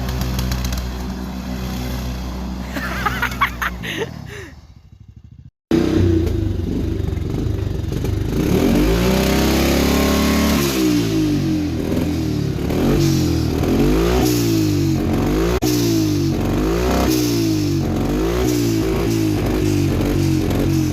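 Turbocharged John Deere tractor diesel running steadily, then a brief fluttering chirp as the throttle drops off and the sound cuts out. It comes back with the engine revving up, then blipped up and down over and over, about once a second.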